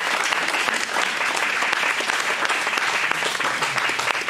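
Audience applauding: dense, steady clapping from a room full of people.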